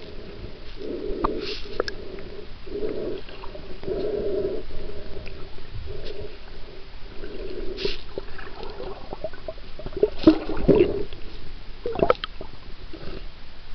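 Muffled water sloshing and gurgling around a camera held underwater, swelling roughly once a second or so as a swimmer moves through the water, with scattered clicks and a few sharper knocks near the end.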